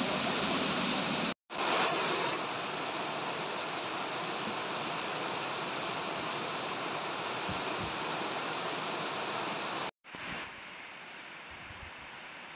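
Rushing water: a waterfall pouring onto rock, then, after a brief dropout about a second and a half in, a shallow river running over stony rapids. About ten seconds in the sound drops out again and comes back quieter, a thin stream of water sliding down bare rock.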